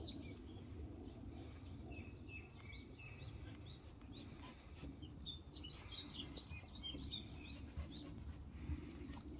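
Small birds chirping in quick runs of short high calls, busiest about six to seven seconds in, over a steady low background rumble.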